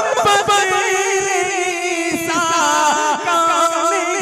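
A man singing a naat through a microphone, holding long, ornamented notes that waver up and down in pitch without clear words.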